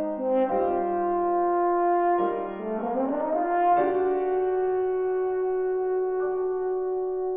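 French horn playing a slow melodic line: a few held notes, then a rising sweep about two and a half seconds in that lands on a long held note.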